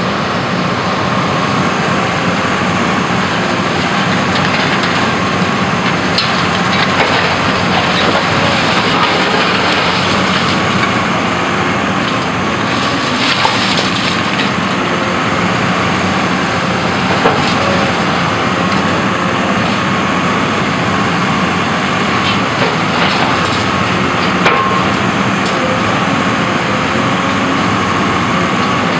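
Cat 324E excavator running steadily under load, its diesel engine and hydraulics working while the sorting grapple tears into a building's walls, with the cracking and crashing of breaking masonry and timber. Four or five sharp cracks stand out over the steady machine noise.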